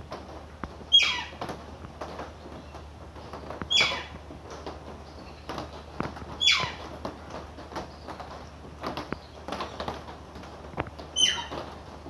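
Parrot giving four loud, harsh squawks, each falling in pitch and under half a second long, with a longer pause before the last.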